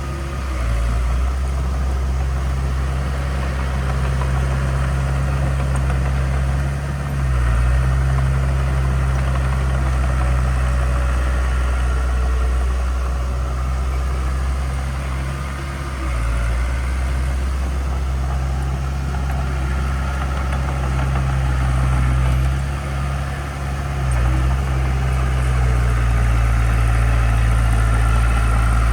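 Heavy construction machine's diesel engine running steadily with a low drone, easing off briefly three times and coming back up.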